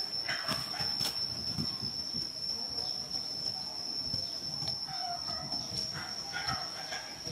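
A steady high-pitched whine runs throughout, with faint short chirps and soft rustles and clicks over it.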